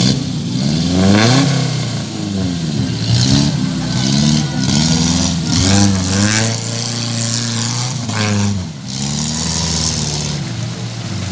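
Off-road 4x4 engine revving hard, its pitch climbing and dropping several times as the throttle is worked.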